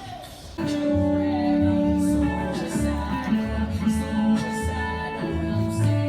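Background music: a guitar-led song with a steady beat that gets louder about half a second in.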